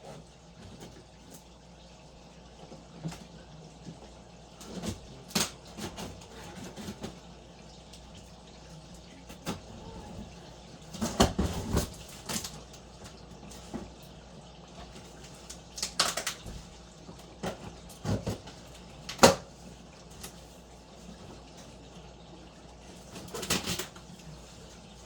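Unboxing a fire alarm control panel: scattered knocks, clicks and rustling from the box and packing being handled, with a busier stretch of rustling and knocking about halfway through and a single sharp knock a few seconds later.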